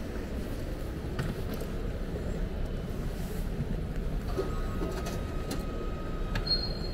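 Steady low rumble of a large airport terminal hall, with a few faint clicks as a touchscreen ticket machine is used. About four seconds in, a thin steady tone starts as the machine prints a ticket, and near the end it gives way to a higher tone.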